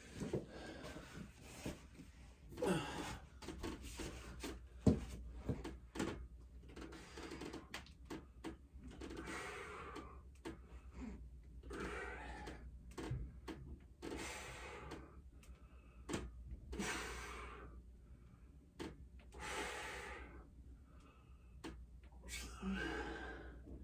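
A man breathing hard through a set of Australian-style (inverted) pull-ups on a dip station, a breath about every two to three seconds, with scattered knocks from the station, the loudest about five seconds in.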